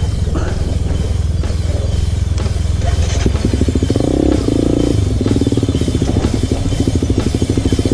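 KTM Duke 200's single-cylinder engine running at low speed on a loose rocky trail. The revs rise about three seconds in and shift again a second or two later.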